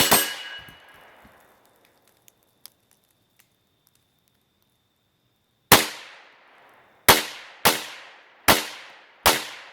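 .22 LR gunshots: one shot at the start, then after about five seconds of quiet, five more shots in quick succession, roughly one a second or faster.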